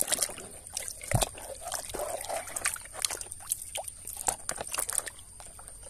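A hand sloshing and splashing through a basin of thick muddy water and lifting a plastic toy out, with many small irregular splashes and drips and one louder plop about a second in.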